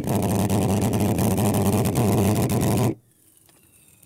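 Homemade valveless pulse jet built from a butane gas can and a steel tailpipe, running with a loud, steady low drone that cuts off abruptly about three seconds in.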